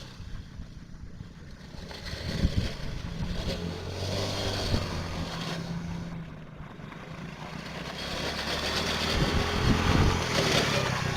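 Small ATV engine running, steady for a few seconds, then dipping and growing louder again near the end.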